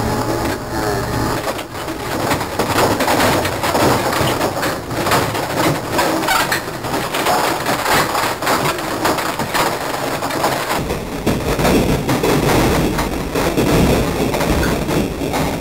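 Solid wood dresser cracking and splintering as it is crushed by the compactor of a rear-loading garbage truck, a dense run of wood breaking and snapping with a heavier low rumble from about two-thirds of the way in.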